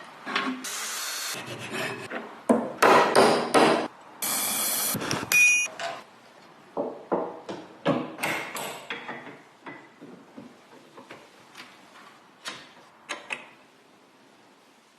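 Workshop sounds from restoring an antique hand clothes wringer: a few loud hissing passes and knocks in the first half, then scattered clicks and knocks of wood and metal parts being handled, growing fainter and sparser toward the end.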